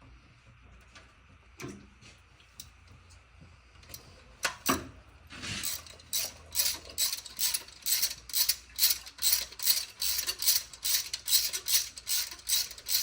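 Ratchet wrench clicking in steady strokes, about three sharp clicks a second, starting about five seconds in after a couple of metal knocks.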